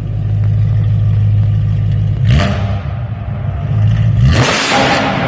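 BMW E92 M3's V8 through an Armytrix valvetronic exhaust, idling steadily, then revved twice: a short blip about two seconds in that falls back quickly, and a longer, louder rev near the end.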